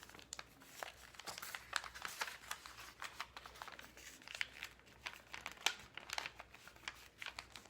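Sheet of paper being folded and creased by hand: irregular crinkling and light crackles as the paper is handled and pressed along the fold.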